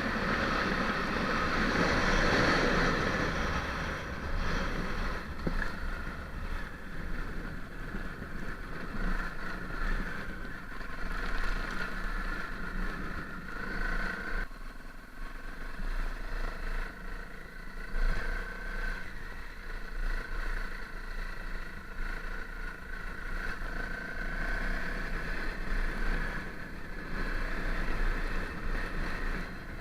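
Honda CRF250L's single-cylinder four-stroke engine running as the dirt bike is ridden, its loudness rising and falling with the throttle.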